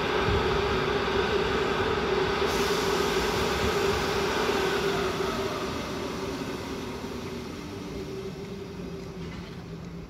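A standing ChS4T electric locomotive humming steadily, with one strong held tone in the hum; the sound slowly fades after about five seconds.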